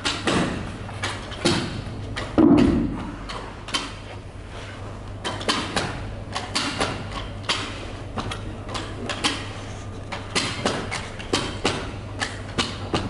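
Irregular knocks, taps and scrapes of hand tools and handling during carpet seam joining, with one louder thump about two and a half seconds in, over a steady low hum.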